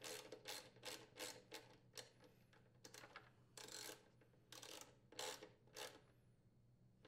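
Socket ratchet wrench clicking in short, irregular strokes as a bolt is tightened down, about a dozen faint bursts.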